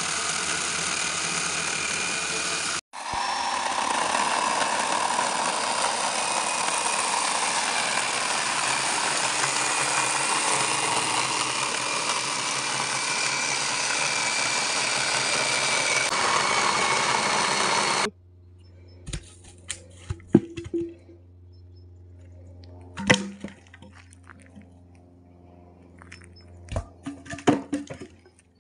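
Battery-powered chainsaw cutting through a dead log: a steady motor-and-chain noise with the rasp of the chain in wood, dropping out for an instant about three seconds in. About two-thirds of the way through it stops abruptly, leaving a few scattered knocks and clicks.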